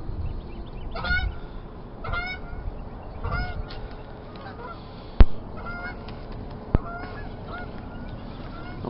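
Honking bird calls repeating about once a second, with a sharp click about five seconds in and a fainter one a second and a half later.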